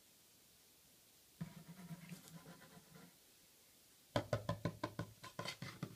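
Fingers tapping on a wooden tabletop to play with a kitten. A softer scraping starts about a second and a half in and fades by three seconds. From about four seconds in comes a fast run of sharp knocks, about six a second.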